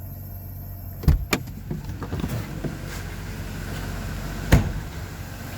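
A 1997 Mercedes-Benz E420's V8 idling steadily, with irregular clacks from its A/C compressor, which is switched on and noisy. The clacks come in a quick run from about a second in, with a single louder one later.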